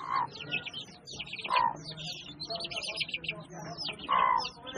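Birds chirping in quick runs of short falling notes, with three louder, lower calls among them.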